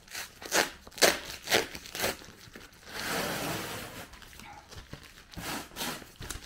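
Adhesive tape and a stuck-on paper sheet being peeled and ripped off a cardboard shipping box: a run of short rasping rips about every half second, one longer tear about three seconds in, then a few more short rips near the end.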